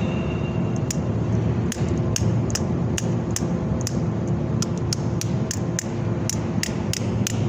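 Welding work on a steel bridge stiffener: a steady low hum with irregular sharp metallic clicks, a few a second.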